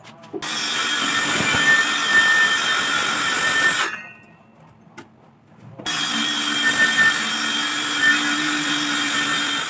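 Circular saw cutting through plywood along a straightedge guide: the motor's steady whine with the blade biting the wood. It cuts off abruptly about four seconds in and comes back at full speed about two seconds later.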